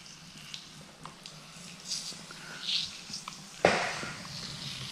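Slip solution sprayed and squished behind wet paint protection film on a car bumper: faint short spritzes and wet squishing, then one sudden loud burst of noise about three and a half seconds in.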